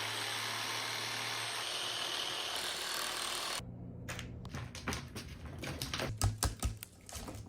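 A power tool runs steadily for about three and a half seconds and cuts off abruptly. Lighter knocks follow, then background music with a steady beat comes in near the end.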